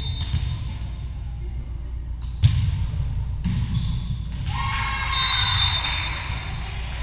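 A volleyball struck hard once, a sharp smack about two and a half seconds in, ringing in a large gym. About two seconds later comes a swell of shouting and cheering voices.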